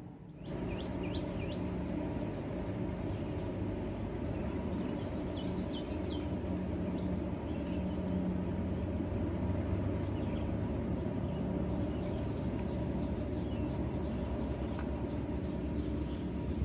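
A steady low background rumble, with a few short high bird chirps about a second in and again around five to six seconds in.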